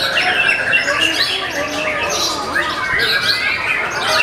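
Several caged white-rumped shamas (murai batu) singing at once: dense, overlapping whistles and quick, repeated falling chirps.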